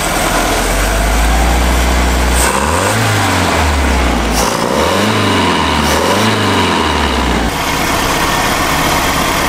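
Boat motor running while hooked up to water, revved up and back down three times in the middle before settling back to a steady idle. It is mostly running, though rough.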